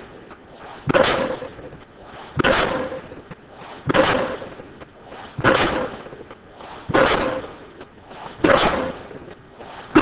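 Impact pile-driving hammer striking a pile at a steady pace, a blow about every one and a half seconds. Each blow is a sharp bang whose ringing fades over about a second before the next one.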